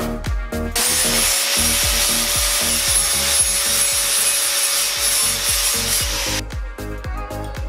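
Angle grinder spinning up about a second in and grinding into a chrome exhaust pipe, a steady whine over a harsh grinding hiss, stopping near the end. Background music with a beat plays under and around it.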